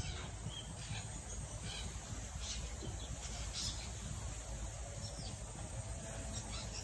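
Quiet rural outdoor ambience: a low steady rumble with faint, scattered short high chirps.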